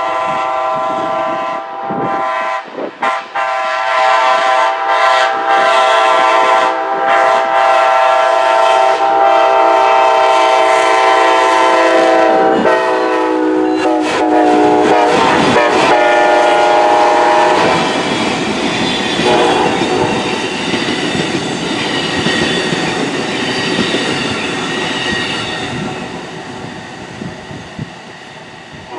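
Siemens SC-44 Charger locomotive's air horn sounding a multi-note chord: a few short blasts, then a long held blast that drops in pitch as the locomotive passes, cutting off about 17 seconds in. The passenger train's wheels then rumble and clatter by, fading near the end.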